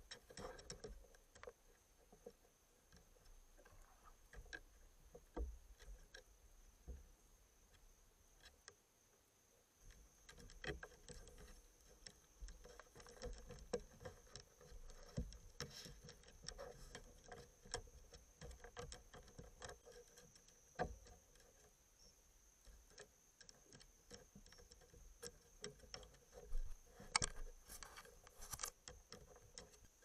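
Raccoons handling a trail camera at close range: irregular clicks, taps and scratches as they paw at it and brush their fur over it, with a busier flurry near the end.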